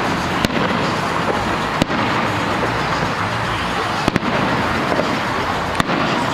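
Fireworks going off: about five sharp bangs, two of them in quick succession near the middle, over a steady background rush of noise.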